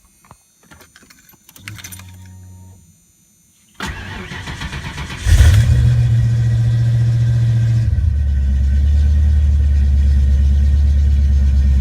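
Ford Mustang 5.0L V8 being started: the fuel pump hums for about a second as it primes and stops, then the starter cranks briefly and the engine catches and runs at a fast high idle that drops to a steady lower idle about eight seconds in. A short prime that stops on its own and a clean start are the signs of a working engine computer.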